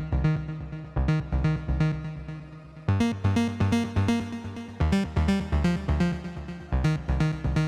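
Background music: a synthesizer and keyboard track with a steady pulsing beat.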